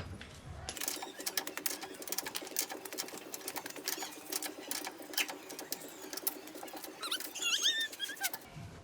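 Ratchet wrench clicking rapidly as fasteners on the rear brake assembly are turned. A few short high chirps come near the end.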